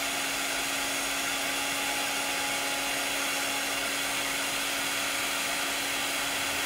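Handheld craft heat tool blowing hot air to dry wet chalk paste: a steady, even whirring rush of air with a constant low hum.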